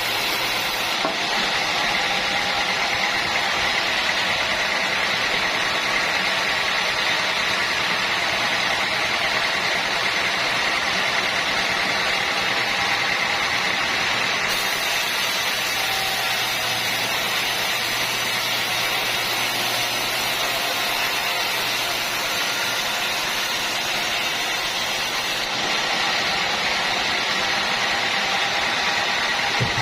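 Sawmill machinery running steadily, a continuous even mechanical noise with a faint steady whine.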